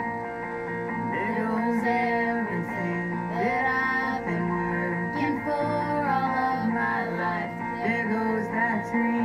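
Music: a song with a singing voice over held chords and guitar.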